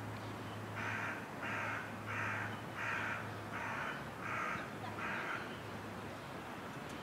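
A crow cawing: seven caws in a steady run, about two-thirds of a second apart.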